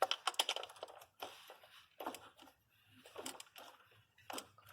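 Ratchet wrench clicking in several short bursts, a dense run at the start and then a burst about every second, as the ignition coil hold-down nuts are run down and tightened.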